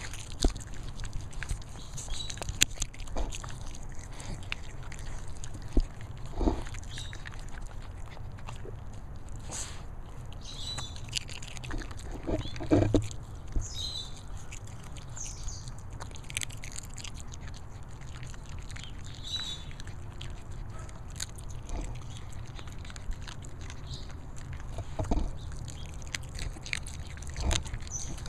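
A schnoodle dog chewing and crunching a grasshopper, with scattered small clicks and a few louder crunches, the loudest about halfway through.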